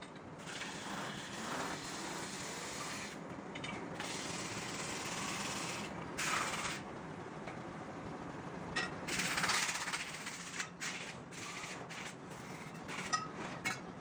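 Metal-spinning lathe running with a large stainless steel disc on it, a hand-held forming tool scraping and rubbing against the spinning metal over a rattling machine noise. The scraping rises into louder, hissing surges a little under halfway through and again about two-thirds through.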